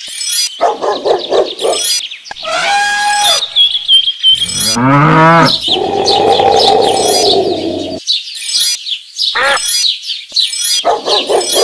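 Birds chirping over and over, mixed with farm-animal calls. About four seconds in comes one long, loud animal call that rises in pitch and is then held for a few seconds before it cuts off.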